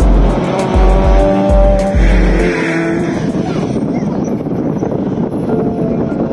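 Race car engines at speed on the circuit, the pitch climbing and stepping through gear changes over the first few seconds, then settling into a steadier, duller drone. Heavy wind buffeting rumbles on the microphone during the first half.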